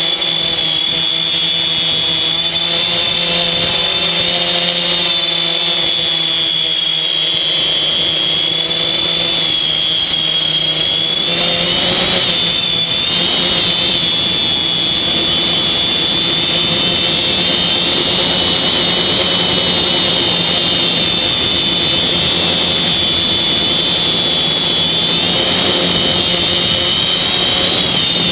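FPV quadcopter's electric motors and propellers whining, heard from the onboard camera, their pitch wavering up and down as the throttle changes, with a surge about twelve seconds in.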